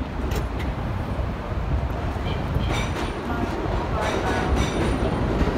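New York City subway train standing at a platform with a steady low rumble, then a chime about three seconds in as its doors slide open, and passengers' voices.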